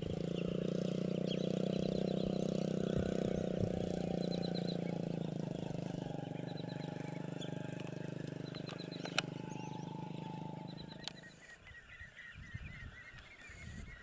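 An engine running steadily at a constant pitch, fading out about eleven seconds in, with small birds chirping over it and more bird calls after it fades.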